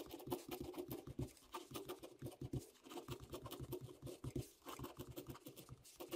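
Ballpoint pen writing on graph paper: faint, quick, irregular scratching strokes of the pen tip as words are written out.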